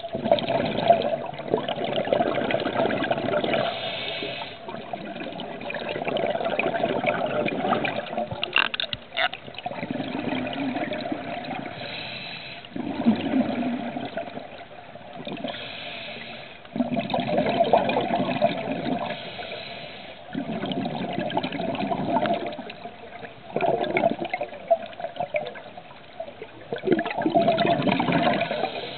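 Scuba diver's exhaled bubbles rushing past the regulator in surges every few seconds, in the rhythm of breathing. Two brief clicks about nine seconds in.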